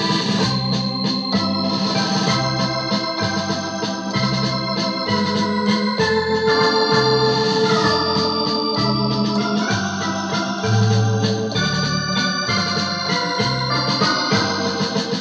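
Technics KN7000 arranger keyboard played with an organ sound: a melody and held chords over a regular bass line that changes note about every two-thirds of a second.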